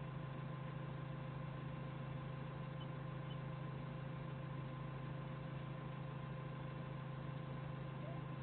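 Forklift engine idling steadily, a low even hum heard from the cab.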